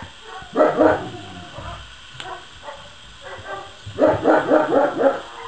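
Puppies barking in play: a short burst of yappy barks about half a second in, then a quick run of them near the end.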